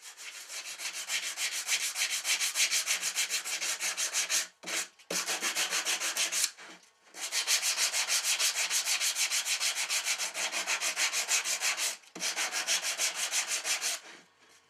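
Sanding block rubbed back and forth by hand over an octagonal wooden plate, a quick, even rasping of several strokes a second. It pauses briefly three times and stops just before the end.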